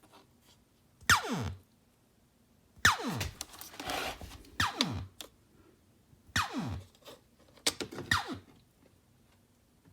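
Fishman Loudbox Mini Charge acoustic guitar amplifier making an unexplained fault noise through its speaker: a string of quick zaps, each falling from a high pitch to a low one in under half a second, coming every second or two, with a faint steady hum between them.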